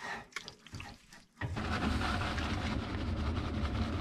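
A few faint soft sounds, then about a second and a half in a steady rushing noise with a low hum starts suddenly and holds.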